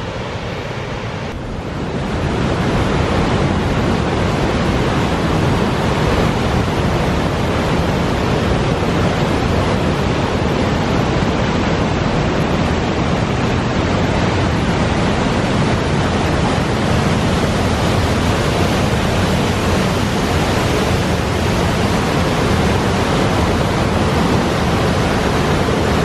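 High Force waterfall on the River Tees: a steady, loud rush of falling and churning water that grows louder about two seconds in.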